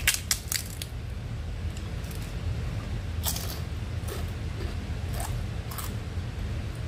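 Crisp deep-fried fish being torn apart by hand: a quick run of sharp crackles in the first second, then a few scattered softer crackles later, over a steady low hum.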